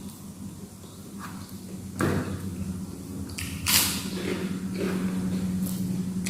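A few short, sharp eating noises, about one every second or two, the loudest a little past the middle, over a steady low hum.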